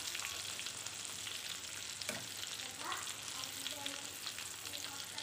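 Flour-battered chicken pieces sizzling in shallow frying oil in a pan, with a utensil scraping and turning them in short clicks.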